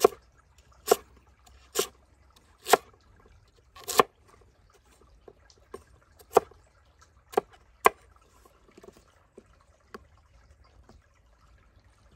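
Cleaver chopping firm, peeled orange vegetable into cubes on a wooden cutting board: about eight sharp knocks of the blade through into the board at uneven intervals, with a few lighter taps between.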